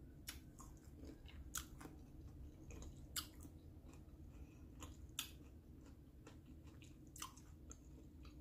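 A person chewing a bite of pickle close to the microphone: faint, irregular wet crunches and mouth clicks, a few of them louder, over a low steady hum.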